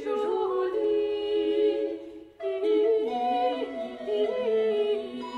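Women's voices singing early music unaccompanied in several-part harmony, breaking off briefly about two seconds in and then coming back in on a new phrase.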